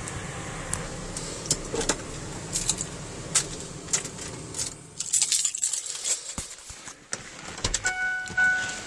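Keys jingling and clicking at the ignition of a Ford Sport Trac, over a low rumble that falls away about five seconds in. Near the end a steady electronic dashboard warning chime starts.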